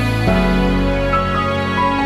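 Background music: sustained chords that change about a quarter of a second in, with a melody of higher notes stepping downward.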